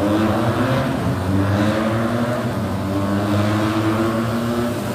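Motorbike and scooter engines running close by, idling and revving a little, over the steady hiss of heavy rain.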